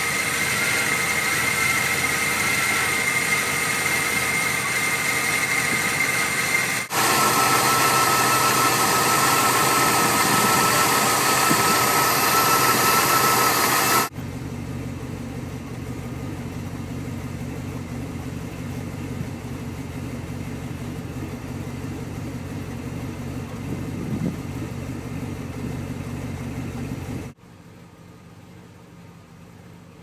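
Cadillac Northstar V8 idling, heard in several takes that cut abruptly one to the next. The first half is louder, with a steady high whine; the second half is quieter and lower. The idle is rough from cold because of a vacuum leak at loose intake manifold bolts, a leak that seals itself as the engine warms.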